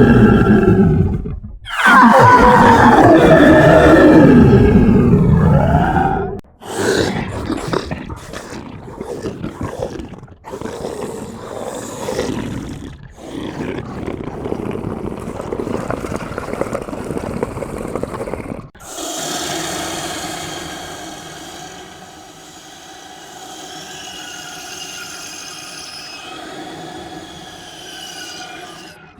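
A run of horror sound effects: a loud, monster-like roar whose pitch slides down and back up, then a rough, choppy stretch, then about ten seconds before the end a quieter, eerie sustained drone with wavering high tones.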